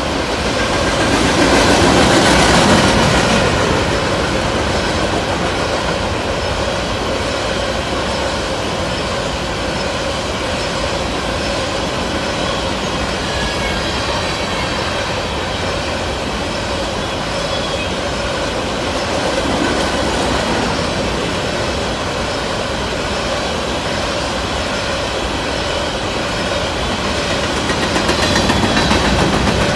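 Freight train of covered hopper cars rolling past close by: a continuous rumble and rattle of steel wheels on the rails, with a faint steady ringing tone over it. It grows louder about two seconds in and again near the end.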